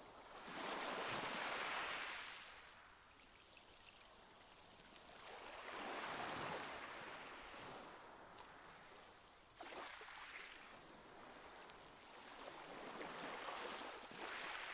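Water washing and sloshing in a shallow pool, a hiss that swells and fades in slow surges about four times, the loudest near the start and one coming in more sharply about ten seconds in.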